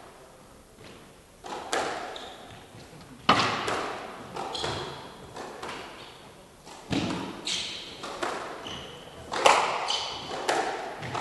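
Squash rally: the ball is struck hard by rackets and hits the walls with sharp hits every second or two, each ringing briefly in the hall. Short high squeaks from players' shoes on the wooden court floor come between the hits.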